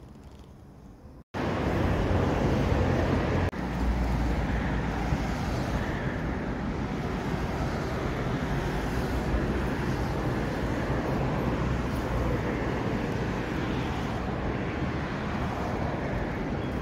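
After a sudden cut about a second in, a steady outdoor rush: wind buffeting the microphone over a low rumble of road traffic.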